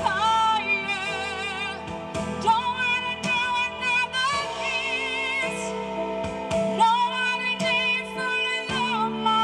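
A woman singing a slow song solo with vibrato, holding long notes over instrumental accompaniment.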